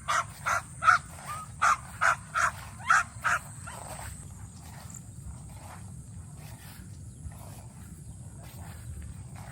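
An animal calling in a quick, evenly spaced series of short calls, about two and a half a second, that breaks off about three and a half seconds in; fainter calls follow.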